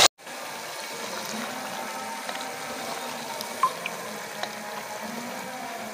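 A pot of aloo gobhi chicken curry simmering: a steady, soft, watery hiss, with one small click in the middle.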